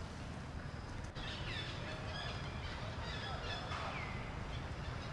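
Short high-pitched animal calls, several rising or falling chirps and squeaks starting about a second in, over a steady low rumble.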